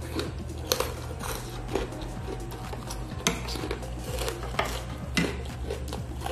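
Eating sounds: chewing, with a metal spoon and fork clinking and scraping against a bowl of meatball soup and noodles in several sharp clicks.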